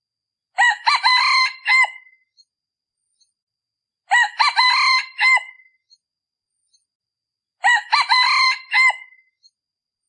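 Male decoy rooster of the kind used to lure wild junglefowl, crowing three times at even intervals about three and a half seconds apart.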